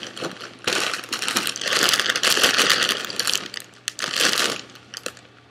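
Unopened snack bag of Cheetos popcorn being shaken hard, the popcorn rattling inside and the bag crinkling. The shaking comes in irregular bursts, dying down near the end.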